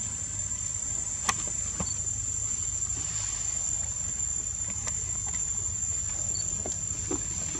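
Insects droning with one steady high-pitched tone over a low rumble, with a single sharp click a little over a second in.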